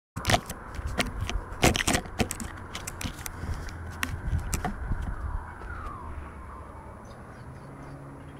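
Handling noise from a camera being set on top of a metal drum: a quick run of knocks, scrapes and crackles right on the microphone, loudest in the first two seconds and thinning out after about five seconds. A low steady drone comes in near the end.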